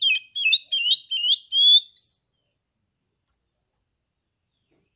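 Male oriental magpie-robin (kacer) singing a quick run of sharp, repeated whistled notes, about three a second, ending on one rising note a little over two seconds in, then falling silent.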